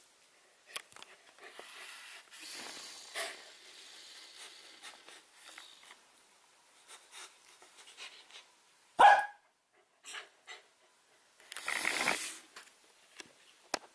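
Samoyed puppy giving one short, sharp bark about nine seconds in, the loudest sound here, with soft rustling and mouthing in bedding before it and a longer breathy, noisy burst from the dog near the end.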